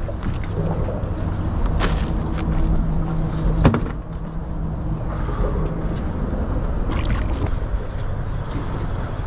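Boat motor running steadily with a low hum, with a few sharp knocks and clatters about two seconds in, near four seconds and around seven seconds.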